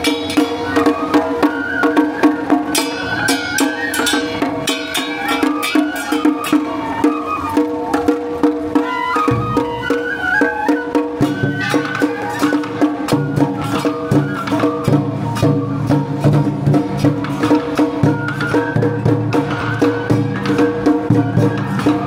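Japanese festival procession music: transverse flutes play a wavering melody over regular, evenly spaced drum and percussion strikes.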